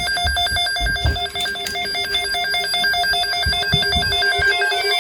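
Electronic emergency alert tone, a rapid ringtone-like warble flipping quickly between pitches without a break, with a few soft low thumps underneath.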